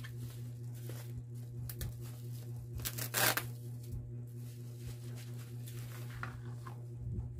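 Bubble-wrap packaging rustling and crinkling as it is handled and unwrapped, with one louder tearing sound about three seconds in. A steady low hum runs underneath.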